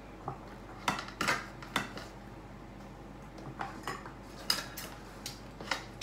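Knives and forks clinking on plates and mussel shells clattering on a serving platter, in about ten scattered, separate clicks.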